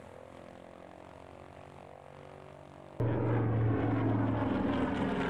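A vintage single radial-engine propeller plane: a quiet steady engine hum at first, then an abrupt cut about three seconds in to a much louder, steady engine drone as the plane flies overhead.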